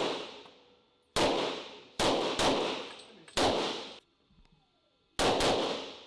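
Gunshots echoing in an indoor range, each shot ringing out for about a second: four separate shots, then a quick burst of three near the end.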